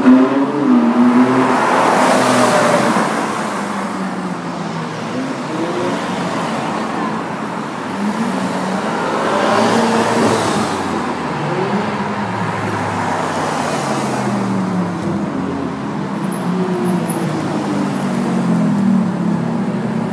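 A line of Ferrari sports cars driving past one after another at parade pace, their engines revving up and falling back. The loudest pass-bys come about two seconds in and again around ten seconds.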